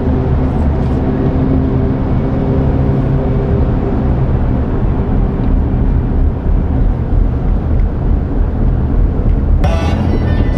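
Steady low rumble of a vehicle on the move. Music comes in near the end.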